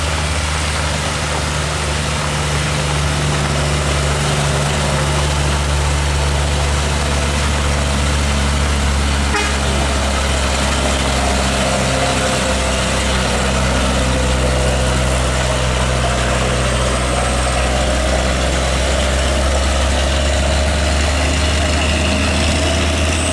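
Heavy diesel truck engine running steadily under load as the truck climbs a steep hill, a low, even drone that holds the same level throughout.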